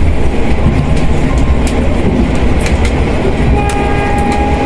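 Passenger train running on the rails: a heavy steady rumble with sharp clicks of the wheels over rail joints. About three and a half seconds in, a train horn sounds one steady note for over a second.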